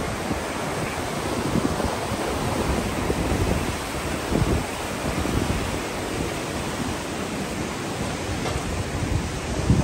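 Wind buffeting the microphone: a steady rushing noise with irregular low gusts.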